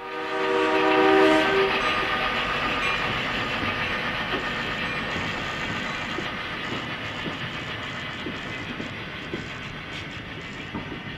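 Diesel locomotive horn sounding one blast for a grade crossing, about two seconds long, then the train rumbling past with light wheel clicks, slowly fading.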